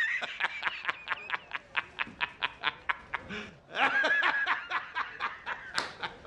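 A man laughing hysterically: rapid bursts of about five a second, breaking into a higher, drawn-out cackle about four seconds in.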